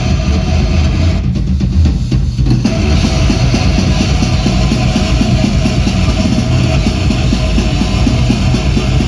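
A live rock band plays loudly, with drum kit, bass drum and electric guitar. About a second in, the upper instruments briefly thin out while the low end and drums carry on. The full band comes back with fast, dense drumming.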